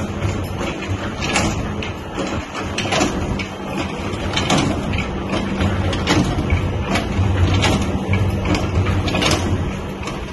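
Daleem (haleem) mixing machine running: a steady motor hum, with short knocks about once a second as the stirring paddle works through the thick daleem in the steel pot.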